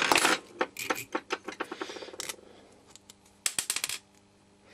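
Fingers handling small hard parts inside an opened sonar transponder's end assembly: a quick run of clicks and taps over the first couple of seconds, then another short cluster of clicks about three and a half seconds in.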